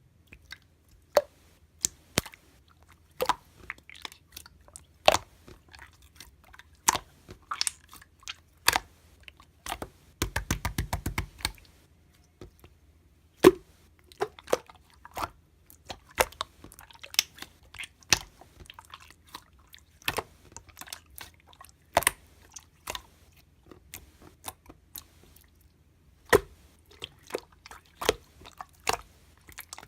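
Irregular sharp clicks and crunches, about one or two a second, with a quick rattling run of clicks about ten seconds in.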